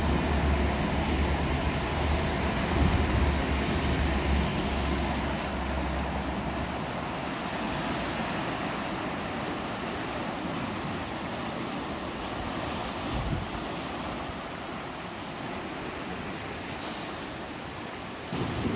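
Sea waves washing in steadily along a seawall, with wind on the microphone. A low rumble underneath fades out about six seconds in.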